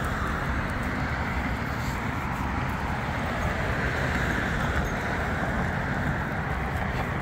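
Steady noise of road traffic from a busy road alongside: tyres and engines of passing cars blending into a continuous rush.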